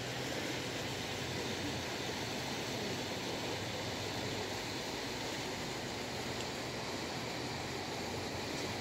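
Steady rushing of a flood-swollen river as its current swirls past a bridge pier.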